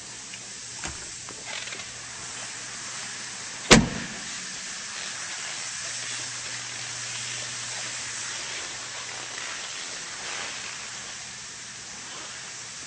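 A Jeep Wrangler door shutting once with a solid thump about four seconds in, over a steady hiss and a faint low hum, with a few light clicks before it.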